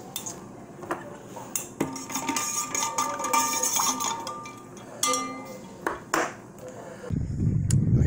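Ice cubes clinking and rattling in a metal tumbler as a drink is stirred with a spoon, with several sharp knocks of the spoon against the cup. Near the end a man's voice starts.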